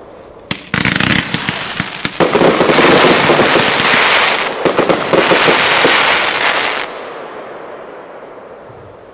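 Piromax PXC346 7-in-1 fireworks compound cake firing: a sharp bang about half a second in, then about six seconds of dense, rapid crackling from silver glitter stars, which fades away.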